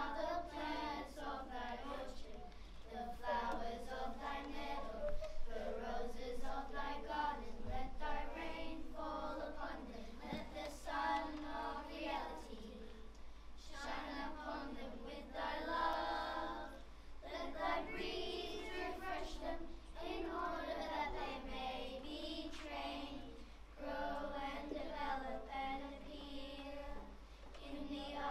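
A group of young children singing a prayer together, in phrases with short breaks between them.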